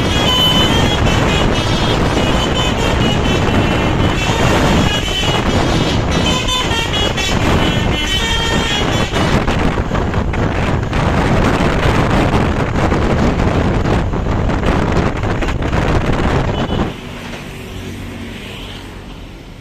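A bus's 'Basuri' telolet horn playing a quick multi-note tune over loud engine and road noise for about nine seconds, followed by loud vehicle noise that drops off suddenly about seventeen seconds in.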